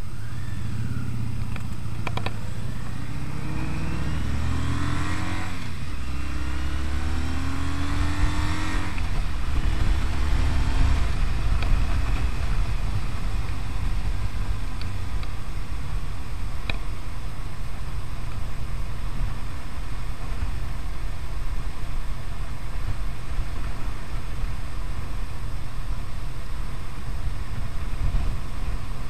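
Kawasaki W800's air-cooled parallel-twin engine pulling away from a standstill. It revs up in several rising steps, one per gear change, over the first ten seconds or so, then settles into a steady cruise under a constant rush of wind and road noise.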